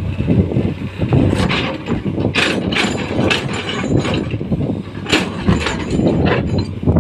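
Excavator engine running steadily under load, with a series of sharp, irregular scraping and cracking noises as the bucket cuts into the ground.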